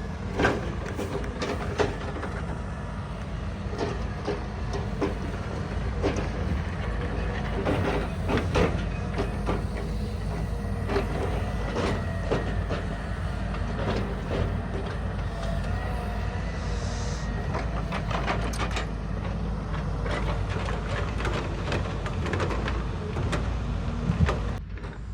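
Engine of a log-grapple forestry machine running steadily, with many sharp knocks and clanks spread through it as it handles logs.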